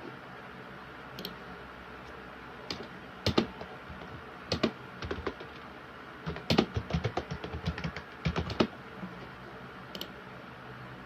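Irregular light clicks and taps, some single and some in quick clusters, over a steady low hum.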